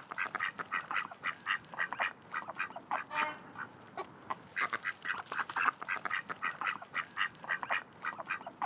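Several ducks quacking, many short calls in quick succession and overlapping one another.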